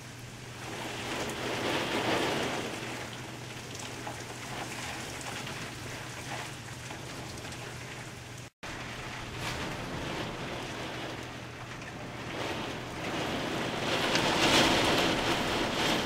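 Heavy storm rain pouring steadily, swelling louder in surges, one a second or two in and a stronger one near the end. The sound cuts out for an instant about halfway.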